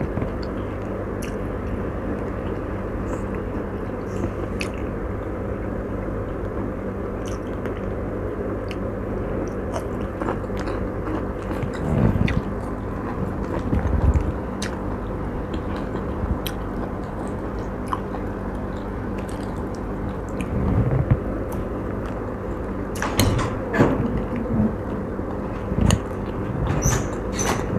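Close-up chewing and biting of chicken steak, with scattered small clicks and a few louder mouthfuls, over a steady low background hum.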